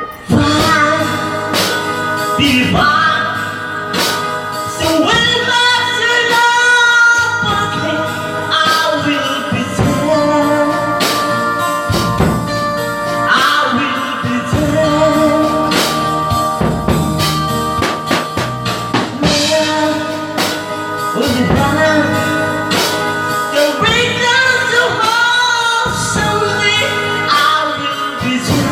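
A song playing: a singing voice over instrumental backing with percussion.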